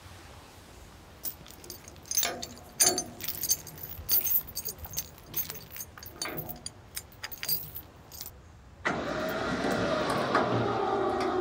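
Steel chain clinking and rattling in scattered sharp clinks as it is set around a log. About nine seconds in, a winch motor starts suddenly and runs steadily with a hum, taking up the chain and lifting the walnut log off the ground.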